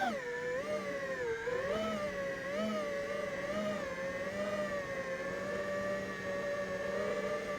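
FPV quadcopter's brushless motors whining, the pitch swooping up and down with the throttle during the first few seconds, then holding nearly steady.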